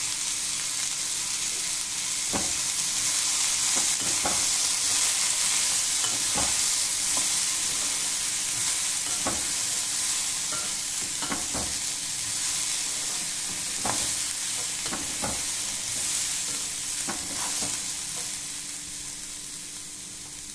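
Peanuts, grated coconut and tempering sizzling in oil in a non-stick pan while a metal spoon stirs them, scraping and knocking against the pan every second or two. The sizzle fades toward the end.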